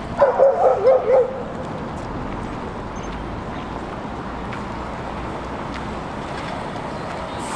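A dog barking: about five quick barks close together, lasting just over a second, followed by steady background noise.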